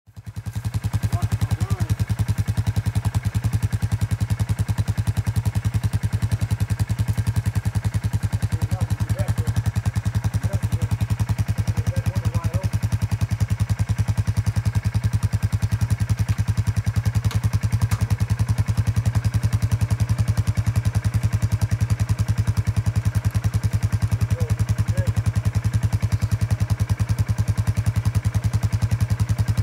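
ATV engine idling steadily: a low, fast, even throb. Faint voices sound over it now and then.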